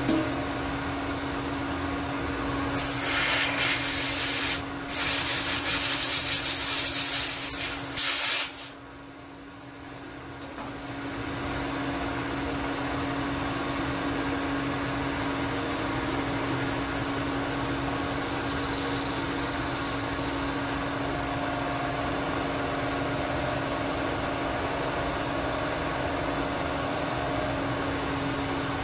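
Steady hum of the Bridgeport milling machine running, one fixed tone. About three seconds in, a loud hiss begins and lasts about six seconds, with a short break partway through.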